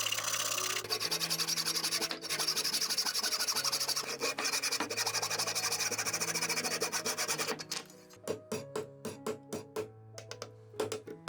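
Rapid back-and-forth rubbing strokes on wood by hand, like sanding or rasping, over background music. Near the end the rubbing stops and gives way to a series of light, sharp knocks.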